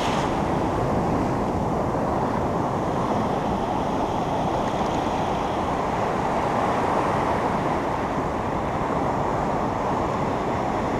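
Ocean surf breaking and washing up a sandy beach, a steady, even wash of waves.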